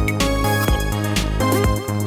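Background electronic music with a steady beat and sustained synth notes.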